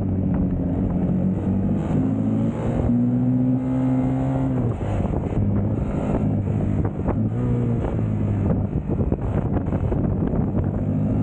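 Sport motorcycle engine on a track lap, its pitch rising and falling with throttle and gear changes. The longest climb ends with a sharp drop about four and a half seconds in.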